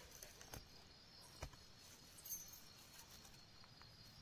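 Near silence with faint crickets chirping steadily in the background, and two soft knocks about half a second and a second and a half in.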